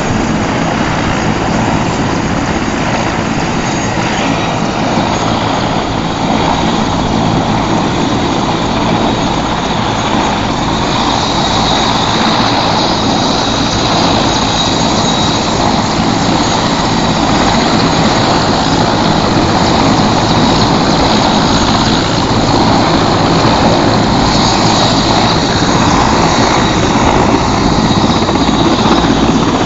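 Helicopter rotor and engine running continuously, slowly growing louder through the stretch.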